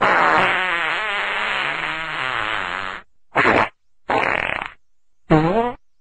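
Fart sounds: one long fart of about three seconds with a wavering pitch, then three short ones.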